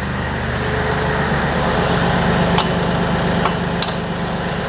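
Kioti DK series tractor's diesel engine running steadily, with a few sharp metal clinks in the second half as the backhoe's outrigger travel locks are taken off.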